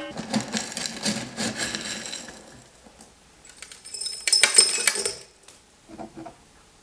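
Alum crystals rattling and clinking against glass as they are dropped into an empty glass jar. There is a stretch of rattling at first, then a louder cluster of bright, ringing clinks about four seconds in.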